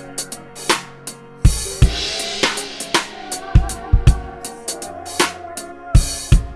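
Drum kit playing a steady rhythm of bass drum and snare hits, with crash cymbals ringing out about a second and a half in and again near the end, over faint sustained tones.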